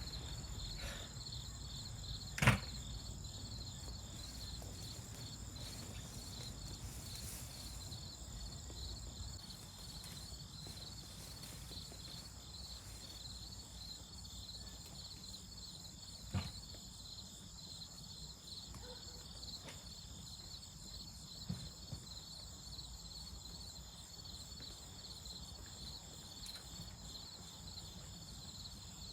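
A steady, evenly pulsing chorus of insects. A single sharp knock comes about two and a half seconds in, with two fainter knocks later.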